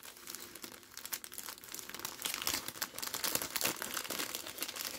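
Clear plastic packet crinkling and rustling in the hands as it is opened, a dense run of quick irregular crackles.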